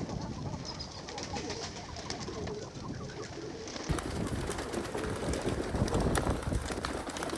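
Domestic pigeons cooing and moving about. From about four seconds in there is louder wing flapping as several take off and fly.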